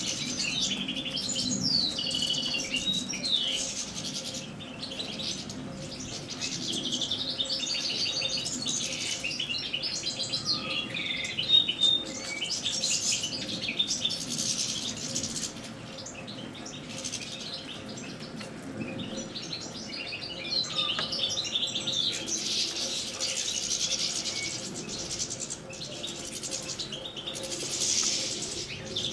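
A flock of European goldfinches twittering and singing, many quick liquid chattering phrases overlapping, with a quieter stretch about halfway through.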